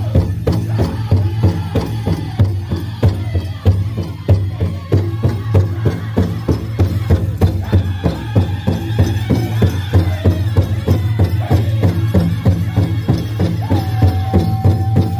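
Powwow drum group performing a chicken dance song: several drummers strike the big drum together in a steady beat while their voices sing over it.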